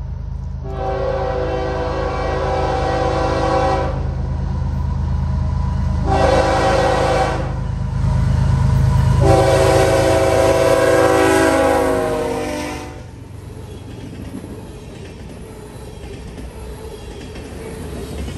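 Canadian Pacific diesel freight locomotive sounding its multi-chime horn in three blasts, long, short, then long, over the low rumble of its engine. After the horn stops, about two-thirds of the way in, the freight cars roll past with a steady rumble and rattle of wheels on rail.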